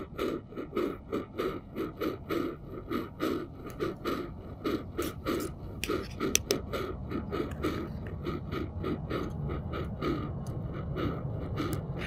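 Hand coffee grinder being cranked, a regular grinding scrape of about four strokes a second that grows smoother in the second half as the beans break down. A couple of sharp clicks come about six seconds in.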